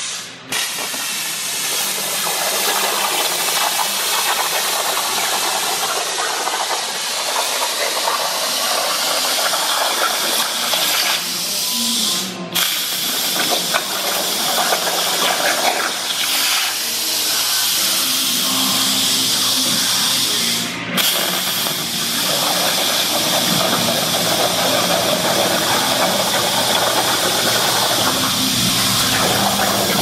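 CNC plasma table torch cutting sheet metal: a loud, steady hiss of the arc and air jet that breaks off briefly a few times.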